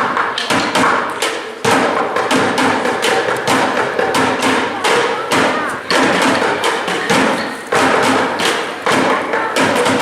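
A dense, continuous run of thumps and taps, several a second, over music and voices.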